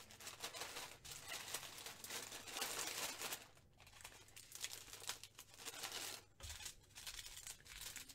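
Small plastic packets of diamond-painting drills crinkling as they are handled and stuffed into a larger plastic bag, in uneven bursts with short pauses, a little quieter in the second half.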